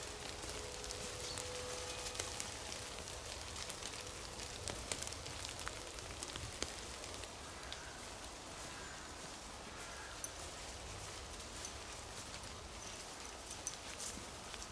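Faint patter of many small scattered ticks in a quiet snowy wood, like falling snow and drips landing on dry leaves, over a low steady rumble.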